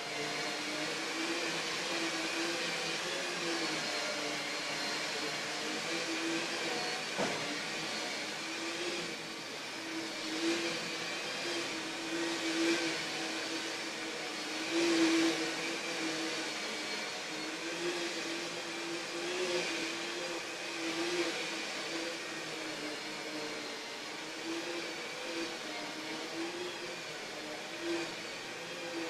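Electric motor of a Host carpet-cleaning machine running steadily, a vacuum-like hum whose level and pitch waver slightly as it works.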